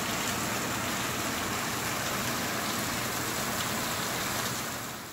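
Theatrical rain effect: water from perforated overhead pipes, broken into droplets by window-screen material, falling and splashing onto the flat stage deck with a steady sound of heavy rain. It fades away at the very end.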